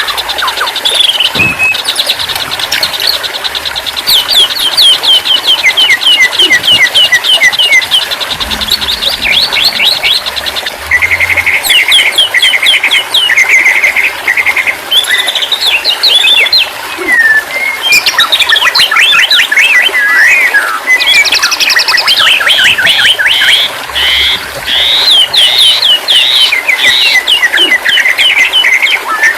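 White-rumped shama song: a loud, unbroken stream of rapid chirps, fast trills and sliding whistled notes.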